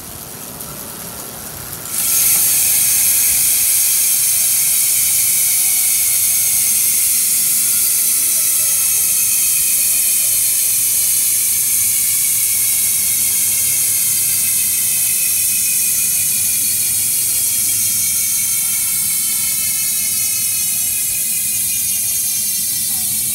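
Speedone Armorer rear mountain-bike hub freewheeling, its 8-pawl freehub ratchet clicking so fast that it makes a loud, high-pitched buzz. The buzz comes in suddenly about two seconds in after a softer start, then holds with its pitch slowly changing as the wheel coasts.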